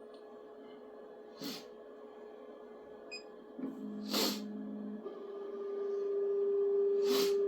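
Elegoo Neptune 4 Max 3D printer's stepper motors whining as the machine moves into its bed-levelling routine: a lower whine briefly about halfway, then a steady higher one that grows louder toward the end, over a faint steady hum. A few short breathy noises are heard.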